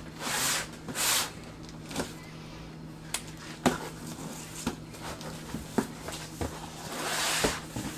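Cardboard boxes being handled and slid against cardboard: two short scraping swishes near the start and a longer one near the end, with scattered light knocks and taps in between.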